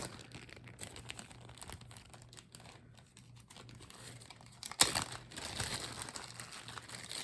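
Plastic jewelry bags crinkling and rustling as they are handled, in irregular crackles, with one sharp loud crackle about five seconds in and denser rustling after it.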